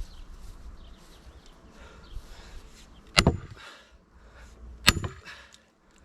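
Two heavy hand-tool strikes on a large wood round being split, about a second and a half apart, each a sharp crack with a short metallic ring.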